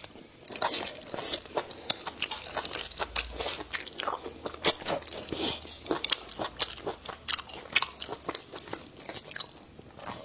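Close-miked eating: repeated bites and crunchy chewing, many short sharp crunches at an irregular pace.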